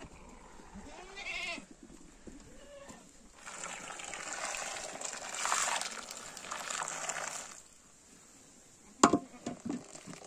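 A goat bleats once, a short wavering call about a second in. Then a steady rushing noise runs for about four seconds, and near the end comes a sharp knock followed by a few lighter clicks.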